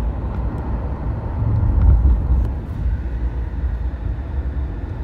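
Car driving, heard from inside the cabin: a steady low road and engine rumble.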